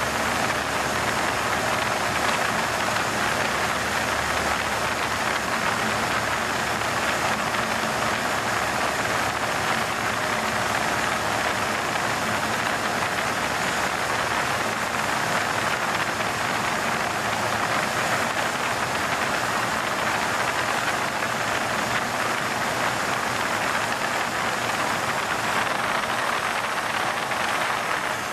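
Cessna 182 Skylane in flight, heard from inside the cockpit: the single piston engine, propeller and rushing air make a steady, even drone that stays constant throughout.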